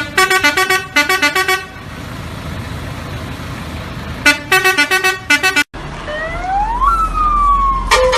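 Vehicle musical horn playing two quick runs of short beeping notes over engine noise. After an abrupt cut, a siren wails up steeply and then slides slowly back down.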